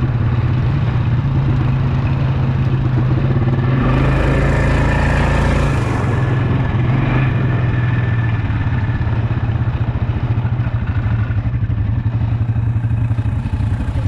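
Quad bike engine running as the ATV rides along a dirt track, with a burst of wind rumble on the microphone about four seconds in. Over the last few seconds the engine settles to an evenly pulsing idle as the bikes come to a stop.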